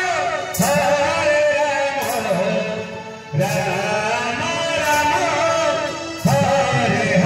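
Devotional ashtaprahari kirtan: voices singing a chant over instruments, with a sharp clash about every second and a half.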